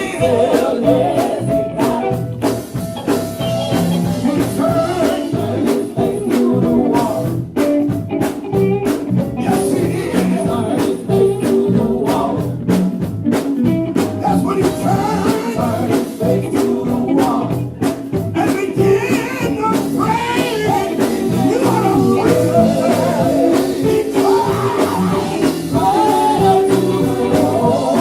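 Gospel music: a band playing with a steady beat, with singing.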